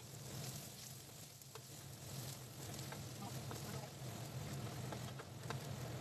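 Minced garlic and ginger sizzling faintly in oil in a nonstick frying pan, stirred with a wooden spatula that scrapes and taps across the pan, over a low steady hum.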